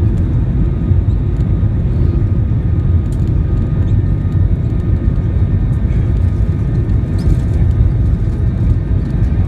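Airbus A321 engines and airflow heard from inside the cabin: a loud, steady, low rumble with a faint steady whine above it.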